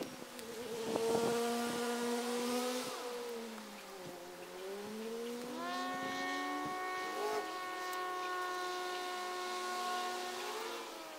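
An engine running, its pitch falling about three seconds in and climbing back up around five seconds, then holding steady, as it changes revs.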